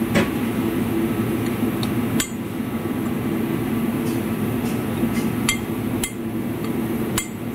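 Metal spoon stirring a dry flour mixture in a glass bowl, with a few sharp clinks of the spoon against the glass, over a steady low background hum.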